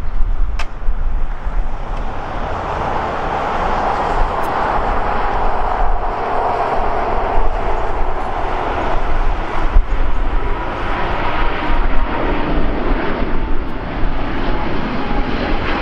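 Air France Boeing 777's twin GE90 turbofans at takeoff thrust as the jet lifts off and climbs out: a loud, continuous jet roar that swells over the first few seconds. In the later part a steady whine from the engines runs through the roar.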